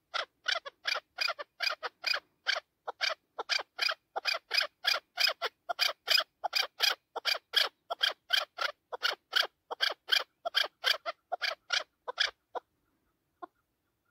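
Chukar partridge calling: a long, fast run of short chuck notes, about four a second, that breaks off about twelve seconds in, with one lone note after.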